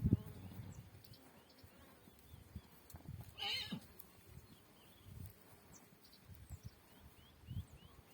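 A horse gives one short whinny about three and a half seconds in, with scattered low hoof thuds around it.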